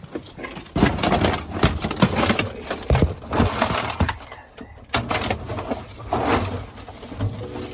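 Trash being handled and carried out: plastic bags rustling and crunching, with irregular knocks and bumps.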